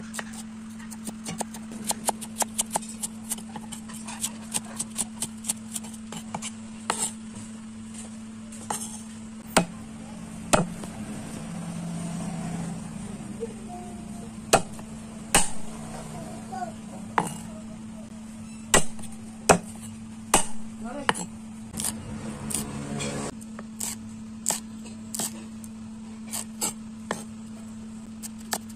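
Kitchen knife chopping shallots, garlic and red chillies on a wooden chopping board: single sharp knocks of the blade on the board at irregular intervals, with a quick run of rapid chops a little past two-thirds through.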